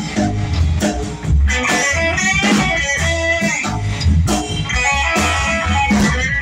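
Live band playing an instrumental break: electric guitar taking the lead over upright bass and a drum kit, with no singing.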